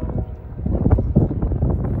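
Wind buffeting the microphone in irregular gusts, with a brief lull shortly after the start.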